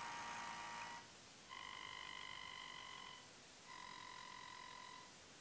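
DJI Ronin-M gimbal's brushless motors giving off a steady high-pitched electronic tone during its auto-tune stability calibration, in three stretches of a second or more with short gaps between.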